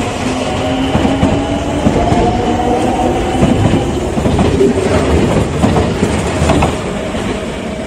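A train running past close by, its wheels clacking over the rail joints in a dense, steady rumble with a faint tone riding over it, easing slightly near the end.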